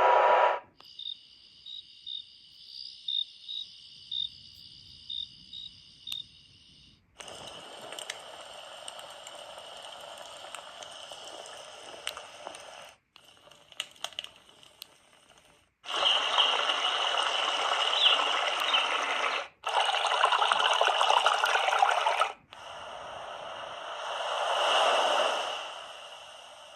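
Flowtune portable sound machine playing its built-in sleep sounds one after another, each cut off abruptly as the next is selected. First comes a sparse series of short high blips over a faint hiss, then several stretches of steady rushing, water-like noise, and near the end a slow swell and fade like a breaking wave.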